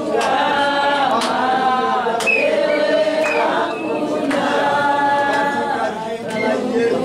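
A church congregation singing together, many voices holding long, drawn-out notes, with a few sharp knocks or claps among them.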